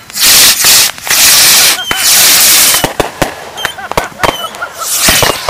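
A chain of consumer fireworks going off together: three long stretches of loud hissing in the first three seconds, broken by many sharp bangs and a few short whistles. After that come quicker scattered bangs and shorter hisses.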